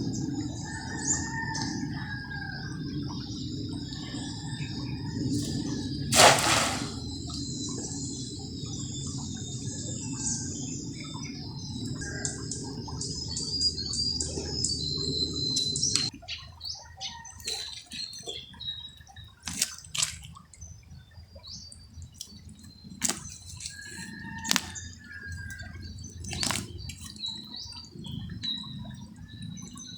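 Water running with a steady rush, with scattered drips and small splashes and birds chirping. There is a loud sudden burst about six seconds in. The rushing stops abruptly about halfway through, leaving drips, splashes and bird calls.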